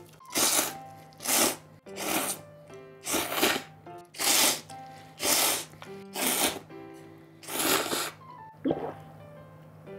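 Person slurping buckwheat soba noodles: about eight loud, hissy slurps, roughly one a second, then a pause near the end.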